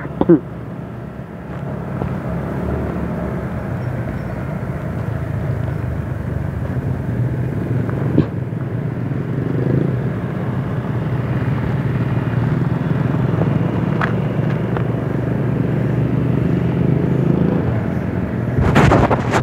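Small motorcycle engines running steadily, with wind and road noise, heard from a moving scooter ride. The rumble swells over the first couple of seconds and then holds even. There is a burst of sharp crackles near the end.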